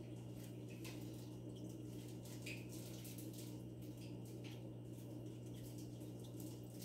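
Steady low hum of aquarium equipment, with faint water trickling and scattered light ticks.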